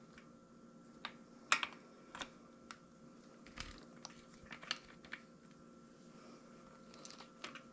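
Faint, irregular metallic clicks and clinks of a torque wrench and socket being fitted onto the cam thrust plate bolts of a GM 5.3 LS engine block and worked around them, snugging the bolts. The loudest click comes about a second and a half in, and a cluster of smaller clicks follows a couple of seconds later.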